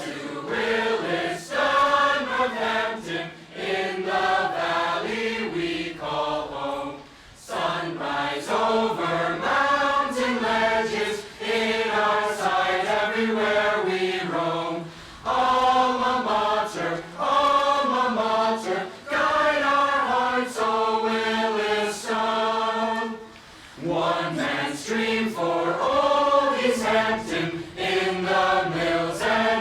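A choir singing a school alma mater in long phrases, with short breaks between phrases about every seven to eight seconds.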